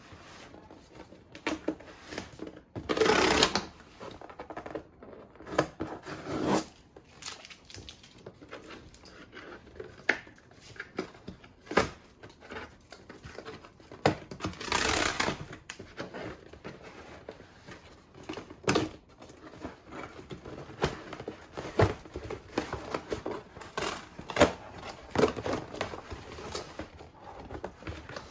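Cardboard shipping box being opened by hand: packing tape ripped off in two longer tears, about three seconds in and midway, with rustling, tapping and scraping of hands on the cardboard in between.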